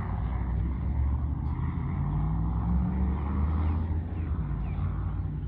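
Steady low rumble of road traffic, with a faint engine hum rising in the middle and easing toward the end.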